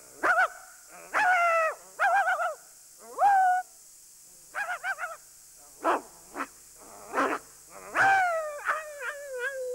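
A man imitating a dog with his voice: a run of short, high yelps and barks with whimpering, ending in a longer whine that slides down in pitch.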